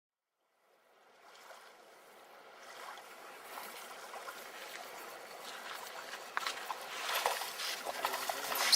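Water splashing and trickling, fading in from silence over the first seconds and growing louder, with a few sharp splashes near the end.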